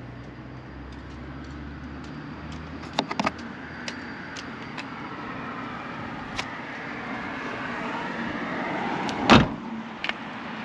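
Car tailgate on an Opel Mokka-e being shut, closing with one loud thump about nine seconds in and a smaller click just after. Earlier there are a few light clicks and knocks of handling.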